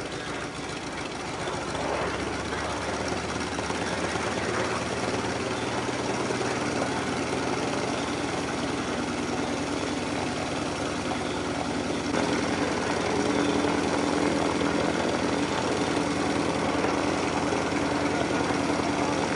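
North American T-28 Trojan's Wright R-1820 Cyclone nine-cylinder radial engine running steadily on the ground, propeller turning, getting louder about two seconds in and again around twelve seconds in.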